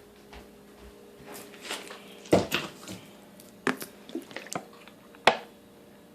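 Someone drinking water: a handful of short wet gulps and knocks of the cup, the loudest a little over two seconds in and near five seconds, over a faint steady hum.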